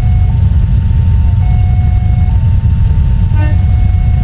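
Electronic railway level-crossing alarm sounding while the barrier is down: a steady two-tone signal that steps between a lower and a higher tone about once a second. It plays over a loud low rumble, and a short sharp beep comes about three and a half seconds in.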